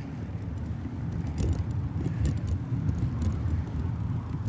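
Wind buffeting the microphone and road rumble from a moving bicycle: a steady low rumble with a few faint light clicks.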